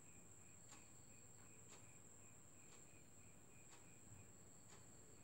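Near silence: faint room tone with a steady high whine, a soft high pulsing about three times a second, and faint ticks about once a second.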